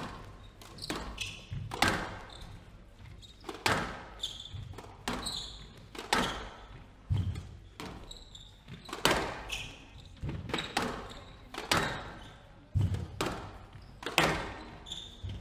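Squash rally: the ball cracks off rackets and smacks the walls of a glass-backed court with wooden floors, about one echoing hit a second, with short squeaks of shoes on the wooden floor between hits.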